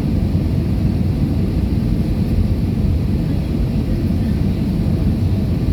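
Steady low rumble of an Airbus A320-214 cabin in flight: the CFM56 engines and the rush of air past the fuselage, heard from a passenger seat.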